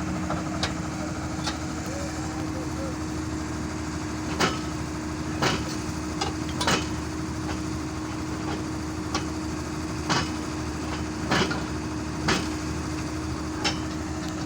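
Excavator diesel engine idling steadily, with about ten irregular sharp knocks from work on the track chain, roughly one every second or so.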